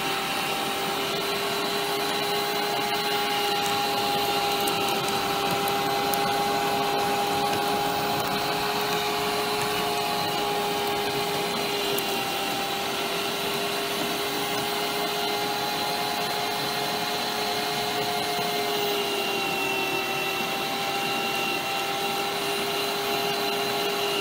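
Bosch electric meat grinder's motor running steadily with a constant whine as it grinds watermelon through the cutting plate. The whine dips slightly in pitch late on.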